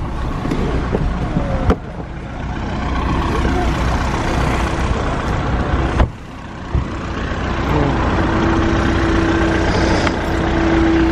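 Street traffic with idling engines around a parked car, a car door knocking shut about six seconds in, and a steady droning engine tone in the second half.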